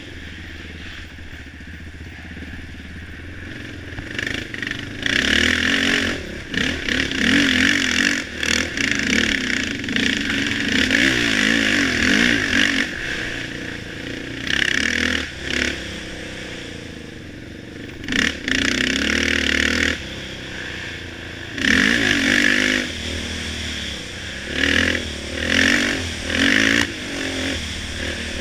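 Engine of an off-road racing machine revving hard in repeated bursts and easing off between them as the rider works the throttle through the trail. The pitch rises and falls with each burst, with some clatter and scraping from the machine over rough ground.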